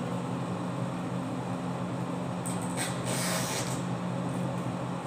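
Hot water hissing from the tap of a stainless steel hot-water urn into a cup topped with a drip coffee bag, for about a second around the middle, over a steady low hum.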